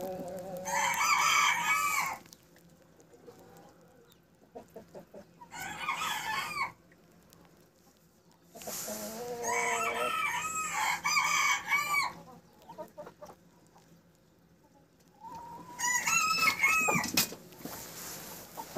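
Australorp chickens calling, with a rooster crowing, in four separate bouts of a second or a few seconds each. There are quiet gaps between the bouts, with a few faint clicks in them.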